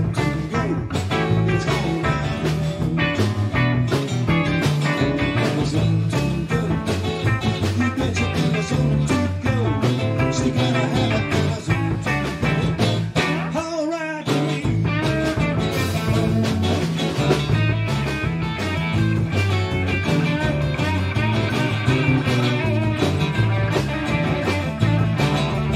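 Live rock band playing: electric bass, drum kit and two electric guitars in a steady groove. About halfway through the low rhythm drops out for a moment before the band comes back in.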